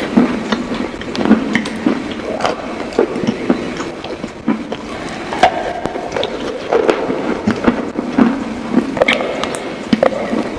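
Close-miked eating of chicken wings: irregular crunchy bites and chewing, a dense run of sharp clicks and crackles.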